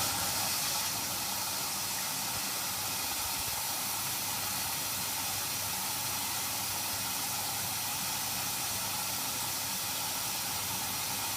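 Washer dryer water inlet valve opening abruptly, then a steady hiss of water filling the drum for the prewash.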